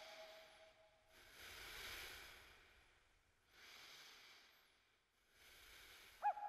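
Faint hissing breaths, three slow swells that each rise and fade, and an owl hoot starting right at the end.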